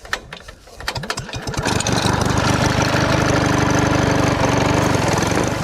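A small engine starts with a few sputters, then catches and runs steadily with a rapid even beat.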